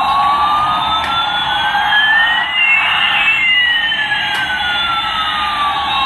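Electronic siren-like sound effect from a battery-powered light-up toy airliner: two tones glide steadily, one rising and one falling, crossing about halfway through, over a steady buzz.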